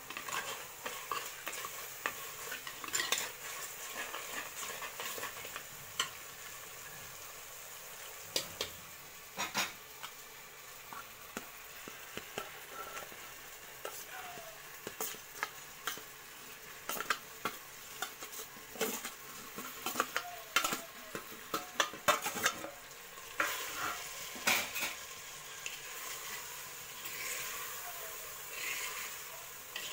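A steel ladle stirring and scraping in a clay pot with scattered clicks and knocks, over oil sizzling steadily under onion-tomato masala. Partway through, small anchovies are tipped in from a steel plate and stirred into the sizzling masala.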